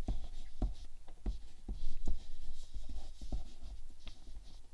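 Crayon scribbled back and forth on drawing paper in short, uneven strokes, shading in an area of the picture.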